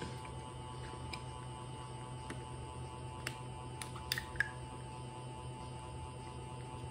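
Steady low hum with a few light plastic clicks and taps, clustered around the middle, as a plastic juice bottle's screw cap is twisted off and bottles and caps are handled.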